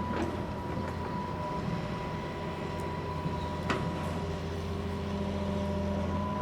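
Engine of a compact earthmoving machine running steadily, a low drone with a steady whine over it, with a single sharp knock about three and a half seconds in.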